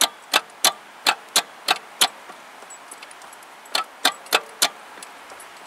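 Starter solenoid of a VAZ classic engine clicking repeatedly as the key is worked, about three sharp clicks a second, then a pause and four more, while the starter fails to engage: the starter's known sticking fault.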